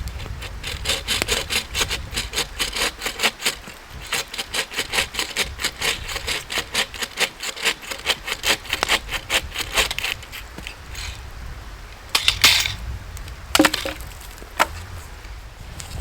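Hand saw cutting through wood in steady back-and-forth strokes, about three to four a second, for roughly ten seconds. It is followed by a few sharp cracks of wood snapping.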